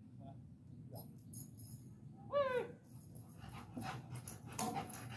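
A Rottweiler gives a single short, loud whine that arches up and falls away, a little over two seconds in. A run of short breathy huffs follows.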